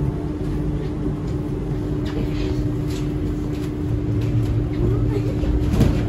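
Tram running, heard from inside the passenger car: a steady low rumble with a constant electric hum. The rumble grows a little louder about four seconds in.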